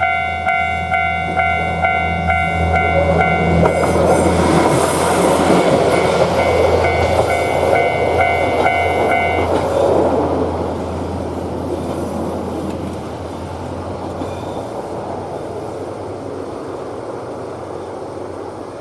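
Japanese railway level-crossing alarm ringing its repeating kan-kan chime about twice a second. A train passes from about four seconds in. The alarm stops near the middle, and the train's rumble fades away.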